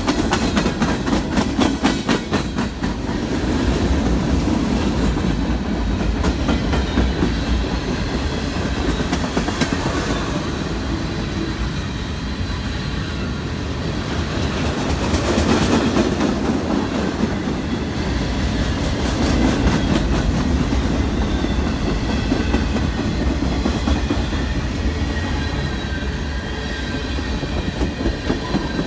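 CSX freight train rolling past, its car wheels clicking steadily over the rail joints; the clicks are thickest near the start.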